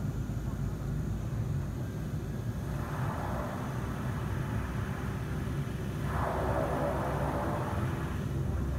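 Twin Otter turboprop plane taxiing on the runway, its engines giving a steady low rumble, with two brief swells of rushing noise about three and six seconds in.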